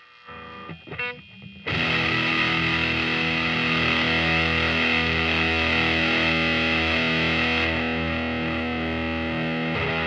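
Electric guitar through a silicon BC108-style fuzz pedal and a 1970s Fender Super Twin Reverb amp. A few quiet notes are followed, just under two seconds in, by a loud fuzzed chord that is held and sustains. About three quarters of the way through, the top fizz is cut back as the pedal's tone filter is turned up.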